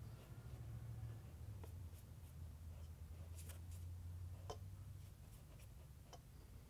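Faint scratching and a few light clicks of a drawing tool working on paper, over a steady low hum.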